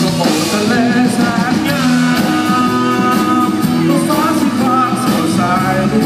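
Live rock band playing, with electric guitars and a singing voice, loud and unbroken, heard from within the crowd.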